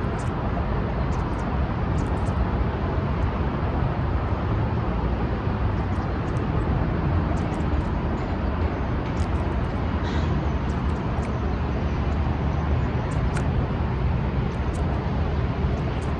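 Steady low outdoor rumble that holds even throughout, with faint scattered ticks over it.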